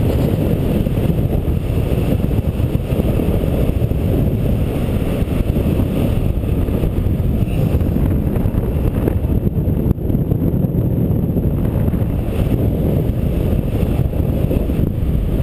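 Wind buffeting an action camera's microphone in paraglider flight: a steady, loud low rumble of rushing air.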